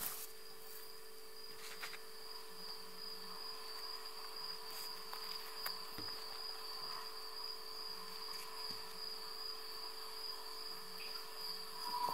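Insects trilling in one steady, continuous high tone, with a constant low hum underneath.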